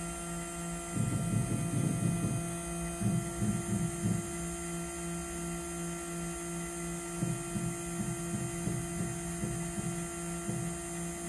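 Desktop CNC lathe's stepper motors jogging the spindle head along the Z axis in short, irregular bursts to bring the cutting tool onto the wooden workpiece, over a steady electrical hum. The bursts come about a second in, again around three to four seconds in, and as a string of shorter ones in the second half.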